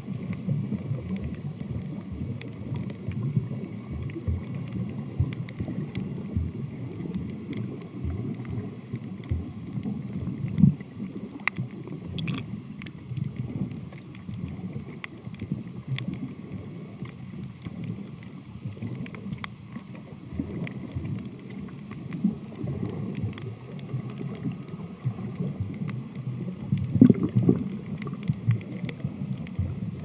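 Muffled underwater noise picked up by a camera recording below the surface: a low, fluctuating rumble of water moving around the camera, with many faint scattered clicks and a couple of louder swells.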